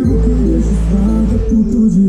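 Music played loud through a pickup's car-audio system of Pioneer triaxial speakers and bass woofers in a wooden box, with a heavy steady bass under a wavering melody and light percussion.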